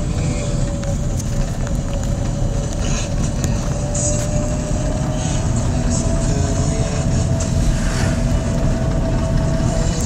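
Car driving, heard from inside the cabin: a steady low engine and road rumble, with a faint tone that climbs slowly in pitch.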